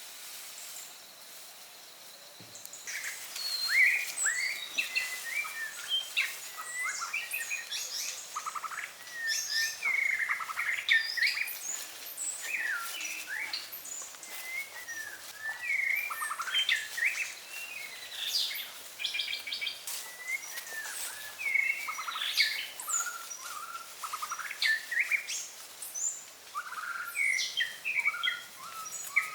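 Several birds chirping and calling busily, in many short quick chirps and trills, starting about two and a half seconds in over a faint steady hiss.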